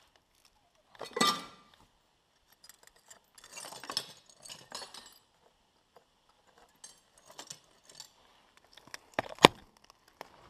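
Scattered clinks, scrapes and rustles of someone climbing in through an old wooden window frame, with a sharp knock about nine seconds in.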